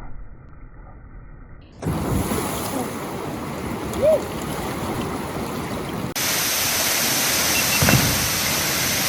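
Rushing whitewater in a string of kayaking clips, changing abruptly twice as the clips cut. From about six seconds in, a louder, steady hiss of falling water.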